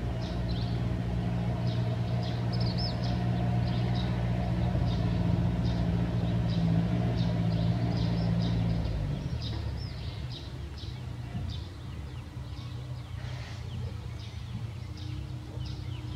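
A vehicle engine running steadily as a low hum, dying away about nine seconds in. Small birds chirp throughout with short, high, repeated calls.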